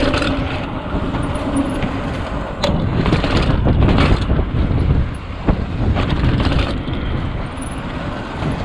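Mountain bike rattling down a flight of stairs: a steady low rumble broken by sharp knocks, loudest about three seconds in.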